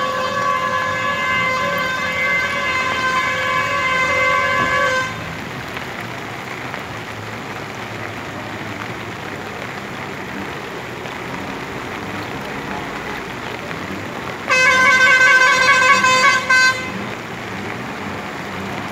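A vehicle horn held in one long steady blast of about five seconds, then sounded again for about two seconds with a short break, near the end. A steady rushing noise continues underneath.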